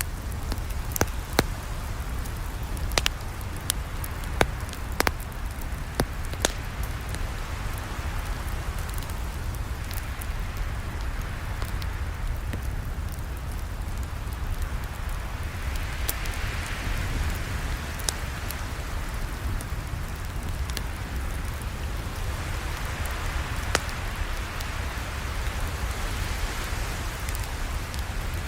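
Campfire crackling: a steady hiss and low rumble of burning wood, with sharp pops, several in the first few seconds and one more later on.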